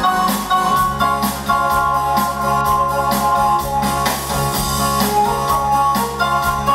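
A rock band playing, with organ and piano chords over a steady drum beat.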